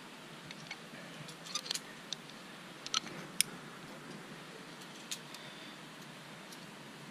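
Climbing gear clinking: scattered light metallic clicks of carabiners and protection on a rack as the climber handles the rope, the sharpest about three and a half seconds in, over a steady hiss.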